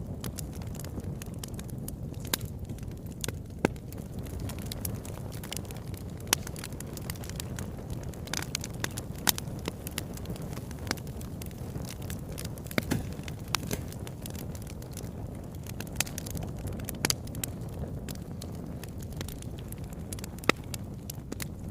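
Wood fire burning with a steady low rush, with irregular sharp crackles and pops of burning logs, a few louder than the rest.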